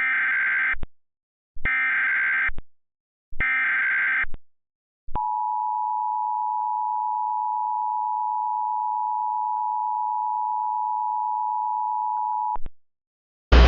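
Emergency Alert System SAME header: three warbling digital data bursts of about a second each. It announces the tornado warning that follows. Then comes the EAS attention signal, the two-tone 853 and 960 Hz alert tone, held steady for about seven seconds and cutting off abruptly.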